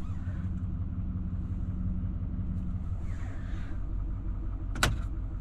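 Chevrolet Silverado 2500HD's L5P Duramax 6.6 L V8 turbo-diesel idling with a steady low rumble. A hum fades out about halfway, and there is a single sharp click near the end.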